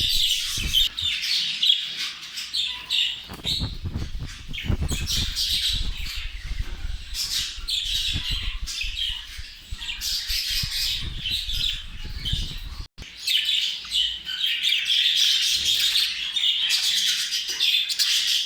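A group of budgerigars chattering, with rapid chirps and squawks throughout. A low rumble runs under it from about three seconds in until it cuts out about thirteen seconds in.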